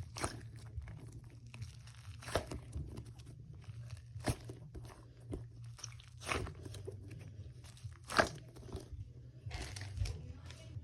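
Crinkly packaging handled during an unboxing, giving short crackling rustles about every two seconds, the loudest near the end.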